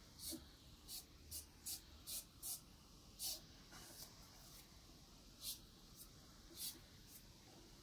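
Soft pastel being worked on paper by hand: about ten brief, faint, hissy swishes, irregularly spaced, most of them in the first three seconds and a couple more later.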